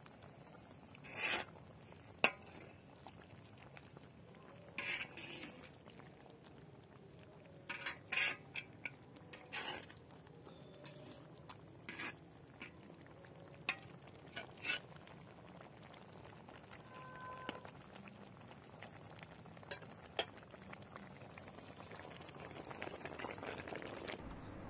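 A metal ladle stirring a simmering potato stew in a large metal pan, with a dozen or so sharp clinks and knocks scattered through.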